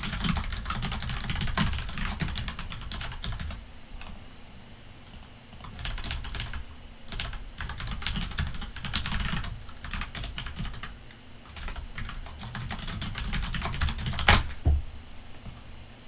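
Typing on a computer keyboard: quick runs of keystrokes with short pauses between them, and one louder keystroke near the end.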